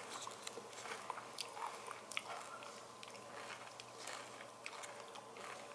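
Faint, irregular small clicks and taps of hands working Play-Doh pieces on a table.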